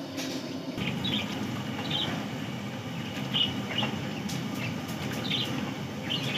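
Small birds chirping in short calls, about six in all, over a steady low rumbling hiss.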